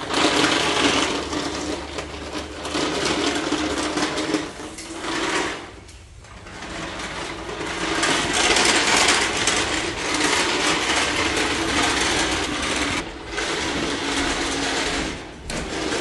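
Toy Henry vacuum cleaner dragged by its hose along a ridged concrete floor, a continuous rattling whir that breaks off briefly about six seconds in and twice more near the end.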